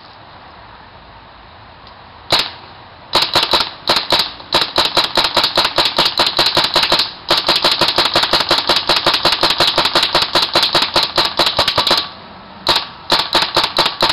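Tippmann 98 Platinum Series paintball marker on a compressed-air tank, firing through a 12-inch ceramic barrel: a single shot about two seconds in, then rapid strings of shots at about six a second with two brief breaks, and a few last shots near the end.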